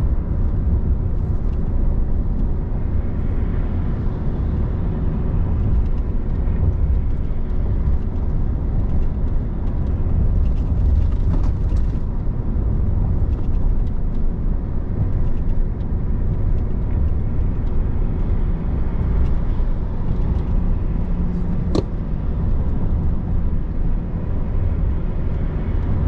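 Steady in-cab drive noise of a pickup working up a long highway grade under tow load: the Duramax 3.0 LM2 inline-six turbodiesel pulling hard under a deep road and tyre rumble. There is a single sharp click near the end.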